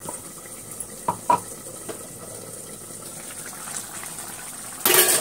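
Drumstick masala curry bubbling at a boil in a kadai over a high flame, a steady sputtering hiss. Two light clinks come about a second in, and a brief loud clatter near the end.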